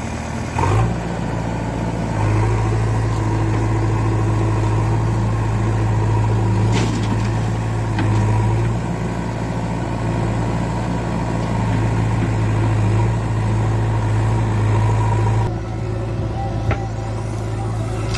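Diesel engines of a Mahindra tractor and a JCB 3DX backhoe loader running side by side: a steady low drone that grows louder about two seconds in and shifts near the end.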